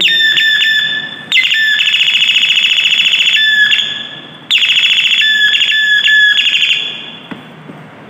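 Electronic doorbell chime playing its tune through the bell unit's small speaker: a high electronic melody with a fast warbling trill, which breaks off briefly about four seconds in, starts again and fades out near the end. It sounds clean and undistorted, the swollen 330 µF capacitor in its circuit having been replaced.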